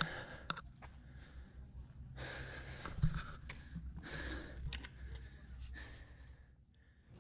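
Faint breathing close to the microphone, a few half-second breaths, with scattered handling clicks and a sharper knock about three seconds in under a low rumble.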